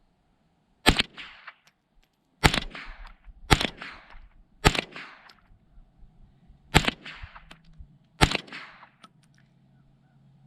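Tippmann M4-22 .22 LR rifle firing six single shots, spaced unevenly one to two seconds apart, each followed by a short echoing tail.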